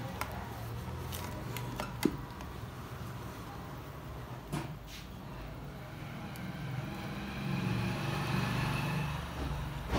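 A few small clicks and knocks of a plastic gas hose being pushed onto the brass nozzle of a soldering torch handle, over a steady low rumble that swells near the end.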